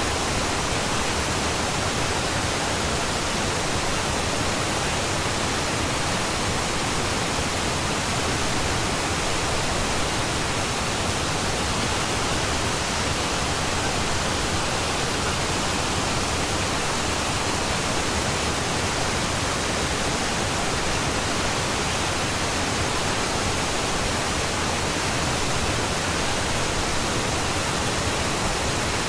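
Steady pink noise: an even, unchanging rushing hiss spread across all pitches, the masking bed of a subliminal audio track.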